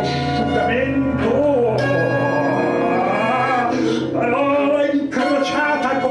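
Violin improvising with held notes and sliding pitches, joined by a man's wordless singing voice.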